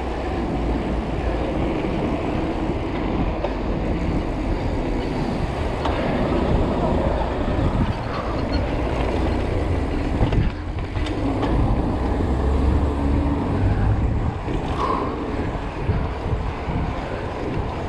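Steady wind rush on the microphone and road noise from a mountain bike riding fast on asphalt: a continuous low rumble that rises and falls a little.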